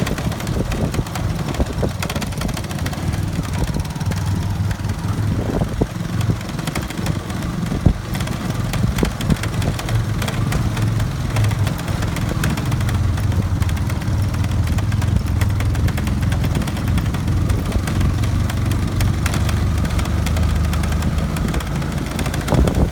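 Motorbike engine running steadily at low speed on a rough dirt track, a low drone that grows a little louder about halfway through, with a few sharp knocks early on.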